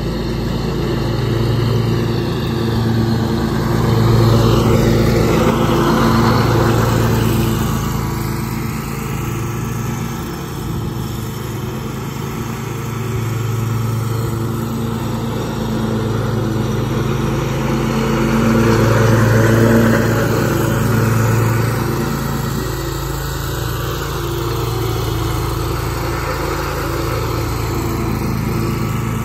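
Scag Tiger Cat II zero-turn riding mower running steadily while mowing, its engine hum and blade noise growing louder twice as it comes near and easing off as it moves away.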